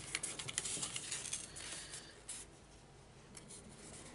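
Cardstock being handled and pressed flat on a cutting mat: papery rubbing and light taps, thinning out after about two seconds.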